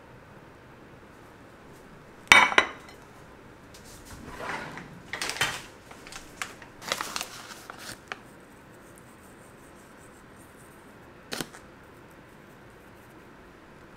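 Ceramic plate set down on a countertop with a sharp clatter about two seconds in. Then a few seconds of irregular clinking and rustling of dishes and utensils, and a single click near the end.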